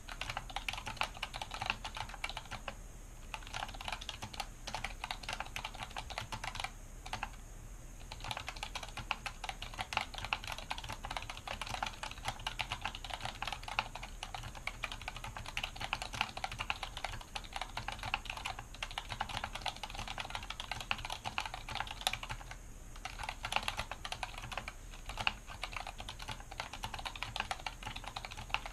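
Fast, continuous typing on a mechanical keyboard resting on a cloth mat, a rapid stream of key clacks broken by a few short pauses.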